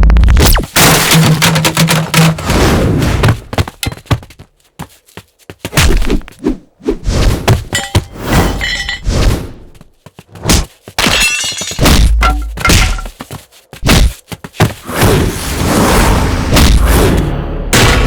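A run of cinematic action sound effects, one after another with short gaps: heavy thuds and impacts with deep low booms, and crashing, breaking sounds.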